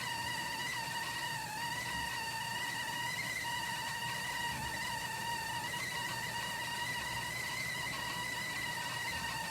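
A LUXGRACE stainless steel stovetop tea kettle whistles at the boil: one steady high note with a slight waver. This is as loud as its whistle gets.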